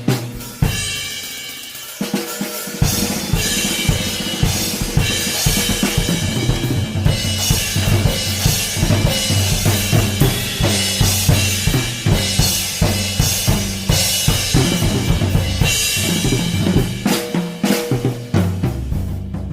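Drum kit played as a sound test: a cymbal hit rings out at the start, then from about three seconds in a steady groove of bass drum, snare and cymbals runs on, easing off near the end.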